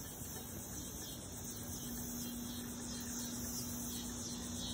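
Steady, high-pitched drone of insects in the trees, with a low steady hum that comes in about a second and a half in.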